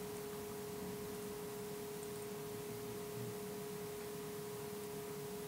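Faint, steady electrical hum: one unbroken tone with fainter tones above it.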